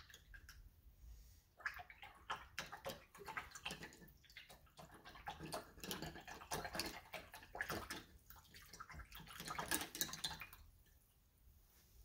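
A paintbrush being swished and knocked about in a cup of rinse water: irregular splashing and small clicks that start about a second and a half in and stop near the end.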